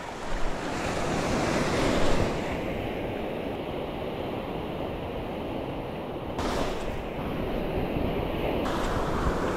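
Ocean surf breaking and washing up a stony beach. It is loudest in the first two seconds, and another wave washes in about six and a half seconds in.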